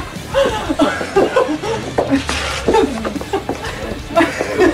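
Voices talking over one another, with chuckling and laughter.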